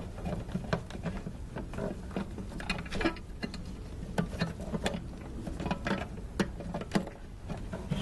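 Irregular plastic clicks, taps and scraping as the bulb section's plastic locking piece is slid by hand along its grooves in the back of a 2005 Ford Taurus headlamp housing.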